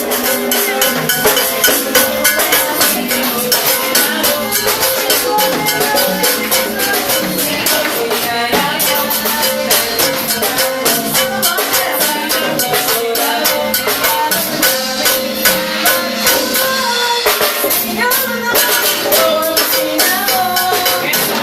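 Live band playing an upbeat instrumental passage, with a drum kit and a fast, steady shaker-like percussion beat over sustained notes.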